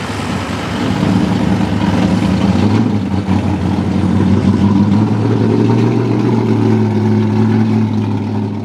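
Chevrolet pulling pickup truck's engine running at low revs, a steady rumble as the truck moves slowly after its pull.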